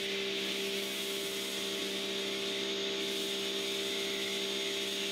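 An 1800-watt electric pressure washer running steadily with an even hum, driving a foam cannon that hisses as it sprays thick snow foam.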